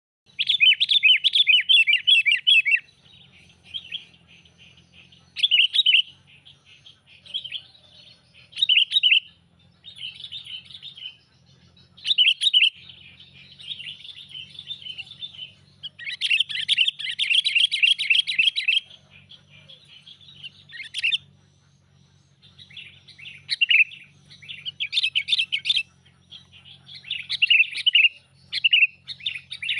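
Sooty-headed bulbul (kutilang) giving loud bouts of rapid chattering calls, each bout from under a second to about three seconds long with short gaps between, the longest about halfway through. A faint low hum lies underneath.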